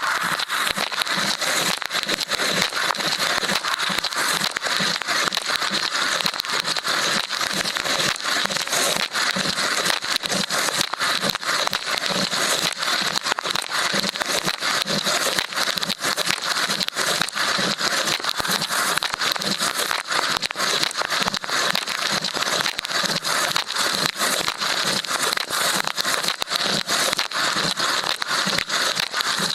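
Water jets inside a running LG dishwasher spraying and spattering against the action camera's housing: a loud, dense, steady rush of countless tiny impacts with no letup.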